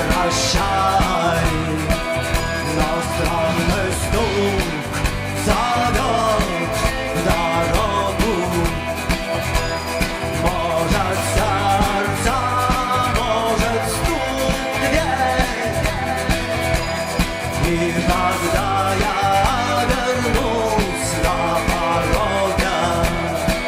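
Rock band playing live: electric guitar over a drum kit keeping a steady beat.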